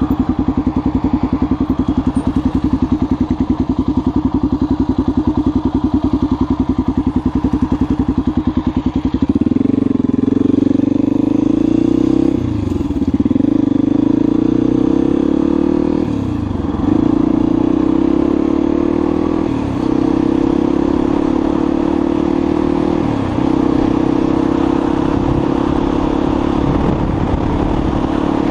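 XR motorcycle engine running at low speed with an even pulsing beat, then pulling away about nine seconds in and accelerating through the gears: revs dip and climb again at each of four shifts.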